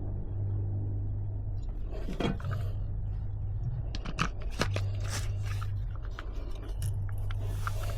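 Scattered scrapes and sharp clicks of hand work on metal over a steady low hum; the clicks come thickest in the second half.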